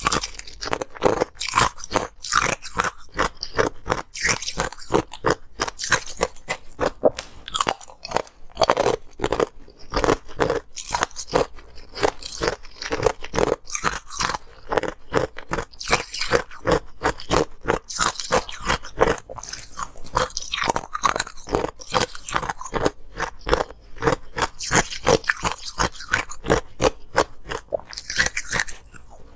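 Close-miked crunching and chewing of chunks of ice: a quick, unbroken run of sharp crunches, several a second, as the pieces are bitten and chewed.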